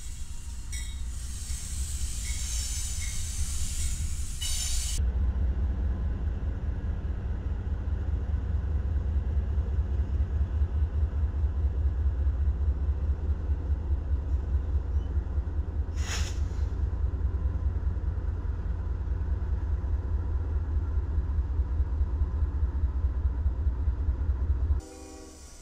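Freight train rolling past with a hiss for the first few seconds. Then a pair of BNSF diesel-electric locomotives pass close by with a deep, steady engine rumble and a fast throb, and one sharp click about sixteen seconds in. The rumble cuts off suddenly near the end.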